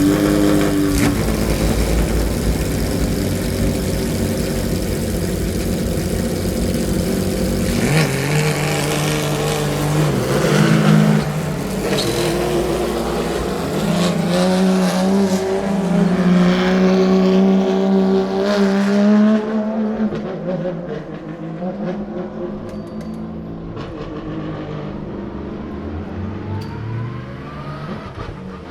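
Porsche 992 GT3 R racing car with an unmuffled X-pipe exhaust, its naturally aspirated flat-six running hard on track. It is loud throughout. The engine pitch climbs in several runs with short breaks between them, as it shifts up through the gears, then fades as the car draws away.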